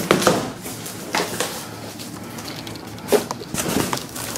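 Large cardboard shipping box being cut and pulled open by hand: irregular short scrapes, rustles and knocks of cardboard and packing tape, the loudest near the start and about three seconds in.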